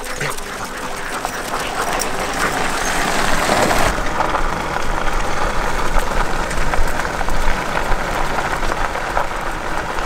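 Gravel crunching and rattling under the wheels of a dog-training cart and the paws of a husky team running along a gravel track: a rough, even noise full of small clicks that turns less hissy about four seconds in.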